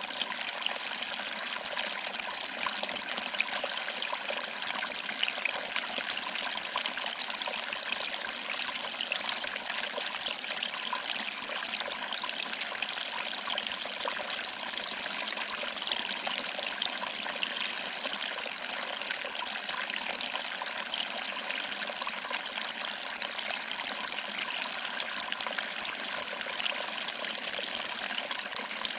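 Small waterfall: water trickling and splashing over rocks into a pool, a steady, even, bright rush without pauses.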